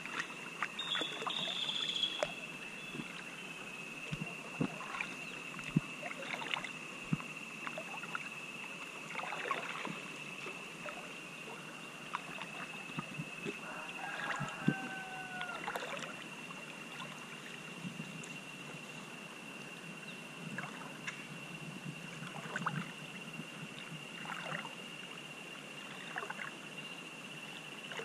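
River water lapping and splashing softly against inner tubes drifting downstream, with scattered small splashes and drips, over a steady high-pitched tone. A brief pitched call sounds about halfway through.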